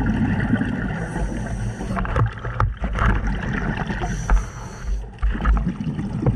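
Scuba diver's regulator breathing heard through an underwater camera: a muffled rush and gurgle of exhaled bubbles, heaviest at the start, with scattered clicks later on.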